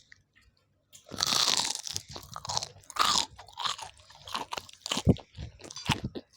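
Crunchy food being bitten and chewed with a string of sharp crackles, starting about a second in.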